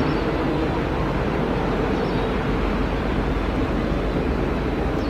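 Jet engines of an Airbus A320-family airliner on short final, just above the runway before touchdown: a steady, even roar with a low rumble and a faint hum.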